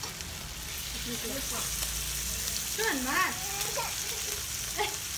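Pork belly sizzling on a tabletop grill pan: a steady frying hiss as the meat cooks and is turned with tongs. A voice is heard briefly about three seconds in.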